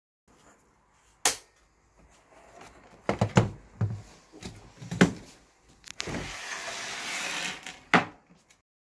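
Plastic parts of a Toyota Prius Gen 2 instrument cluster knocking and clicking as they are handled and fitted into the black housing: a sharp knock about a second in, a cluster of knocks around three seconds, another near five and one near the end, with a rustling scrape of about a second and a half before the last knock.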